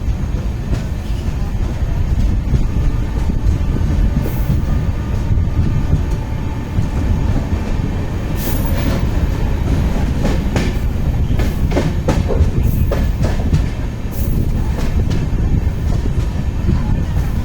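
A train's wheels running on the rails, giving a steady heavy rumble. From about halfway on come sharp clicks and brief high squeals from the wheels.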